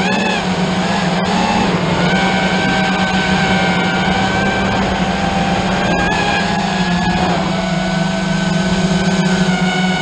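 FPV quadcopter's electric motors and propellers whining steadily. Several tones drift slightly up and down in pitch over a constant low hum, with a few faint clicks.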